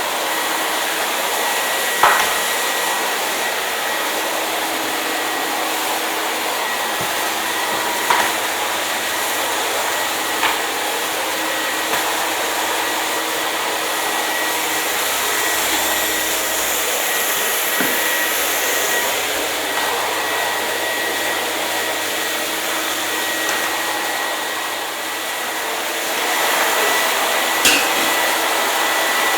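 Hair dryer running steadily: a loud, even rush of blown air with a faint high whine, broken by a few brief clicks, about four in all.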